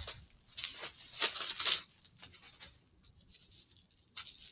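Plastic bubble wrap crinkling and rustling as a small package is handled and unwrapped. The crinkling is loudest in the first two seconds, with a short rustle near the end.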